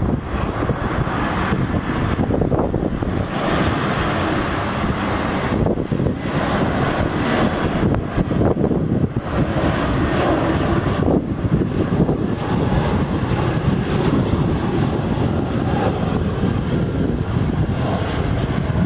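Airliner engines on landing approach: a loud, steady rushing noise with a faint high whine.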